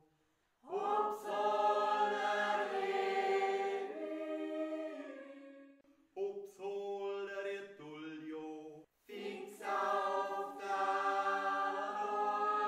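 A mixed group of men, women and children singing a yodel together unaccompanied, in long held phrases with clear jumps in pitch. There are brief pauses for breath about six and nine seconds in.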